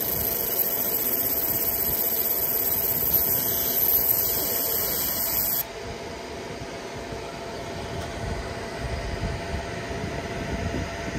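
Laser engraver marking a brass coin, giving a very high-pitched hiss that cuts off suddenly about five and a half seconds in as the marking finishes. A steady machine fan hum goes on underneath.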